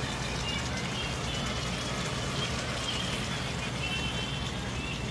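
Hot water poured from a cup into a pan of curry chicken and basmati rice, a steady pouring and splashing.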